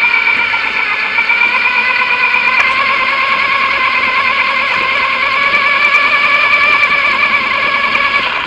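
Electric whine of an RC truck's sensored brushless motor and drivetrain crawling slowly, a steady cluster of high tones that waver slightly in pitch, over the hiss of tyres through shallow water.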